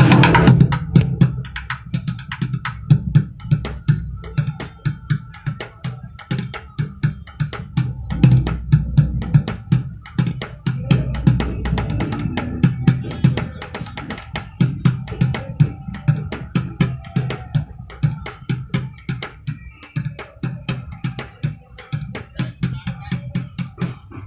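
Plastic buckets played as drums with drumsticks: a fast, continuous beat of deep thuds mixed with sharp, dry stick clicks.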